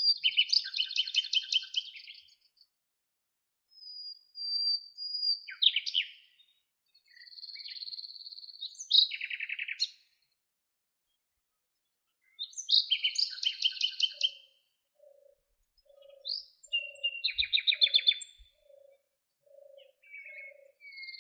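Songbirds singing: phrases of a high whistled note running into rapid trills, repeated every few seconds. In the second half a low note repeats about twice a second alongside them.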